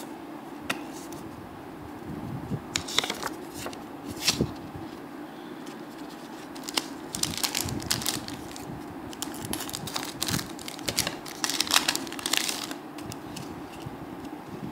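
Foil trading-card booster pack being torn open and its wrapper crinkled: a run of short crackling tears and crinkles, busiest in the second half.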